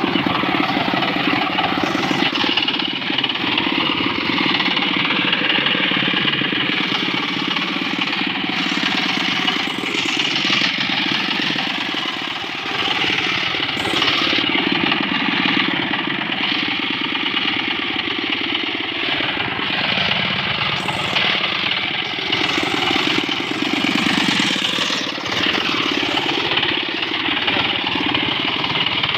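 Two-wheel power tiller's single-cylinder diesel engine running steadily with a fast, even chugging while the tiller is driven along a dirt path.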